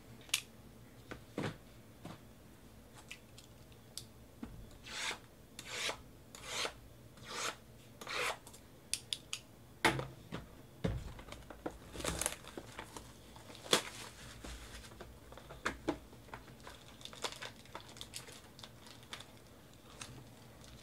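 Trading card boxes being opened by hand: plastic wrapping and cardboard rubbed, torn and crinkled. A run of short scratchy swipes about five to eight seconds in, with a few sharp taps and clicks scattered through.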